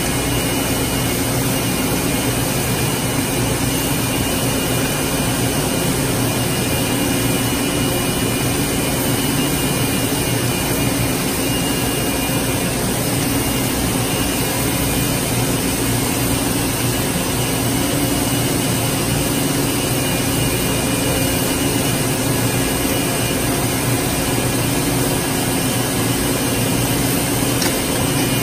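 Plastic corrugated pipe extrusion machinery running in a factory hall: a steady, unchanging hum with a low drone and a few faint high whining tones.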